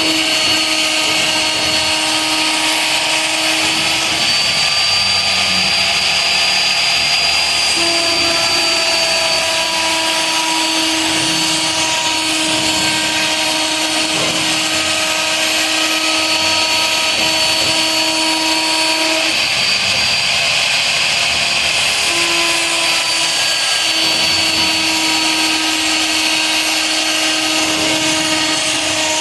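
CNC router running: a loud, steady machine whine made of several pitched tones that shift and cut out and back in every few seconds.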